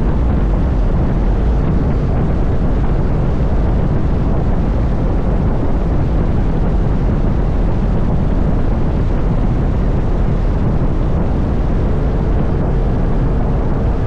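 Strong wind buffeting the microphone in rain: a loud, steady, deep rumbling noise with no break, and a faint steady tone coming in about twelve seconds in.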